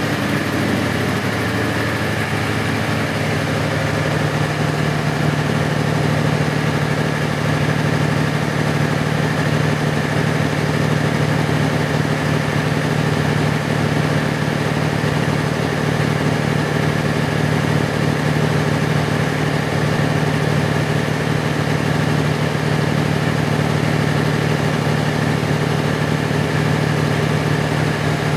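Caterpillar diesel generator set running loud and steady at its governed 1500 rpm, the speed for 50 Hz output.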